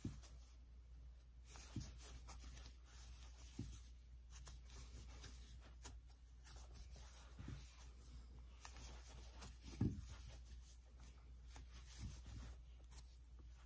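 Faint rustling and scraping of a 7 mm crochet hook drawing thick ribbon yarn through double crochet stitches, with soft low bumps every couple of seconds, the loudest about ten seconds in.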